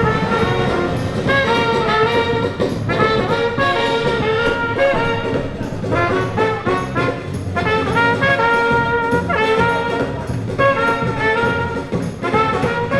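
Trumpet playing a melody in phrases of held and moving notes, with short breaks between phrases.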